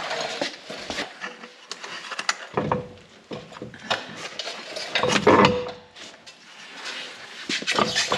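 Knocks, clunks and scraping of a Camso R4S track unit being rolled in and offered up to the wheel adapter on the hub, with two louder scraping stretches about two and a half and five seconds in.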